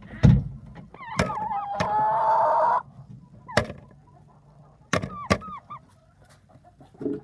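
Chickens squawking and clucking, with one loud drawn-out squawk about two seconds in that cuts off sharply after about a second. Several sharp knocks are scattered through it.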